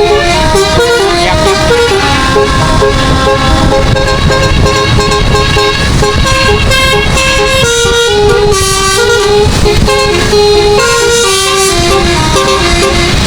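A bus's 12-note Basuri musical air horn (telolet) playing a quick melody of short notes that step up and down in pitch, over a low vehicle rumble.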